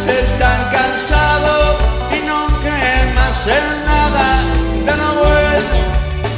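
Live band playing: a male lead singer over electric guitar, bass and drums, with a steady low beat.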